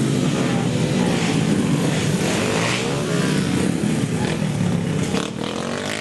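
Several small 50cc pit bike engines revving, their pitch rising and falling as the bikes ride past.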